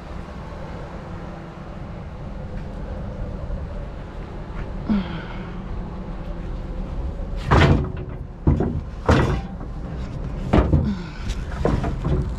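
Scrap wood boards being loaded, giving a series of about six sharp knocks and bangs starting about halfway through, over a steady low rumble.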